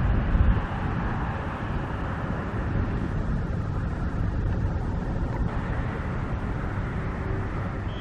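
Steady outdoor traffic noise with a heavy low rumble, a little louder just after the start.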